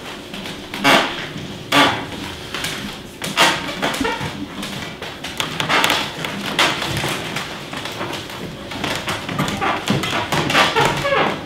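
Hands slapping, pressing and kneading a big floury mound of dough: irregular slaps and thumps, about one or two a second, with rustling and squashing in between.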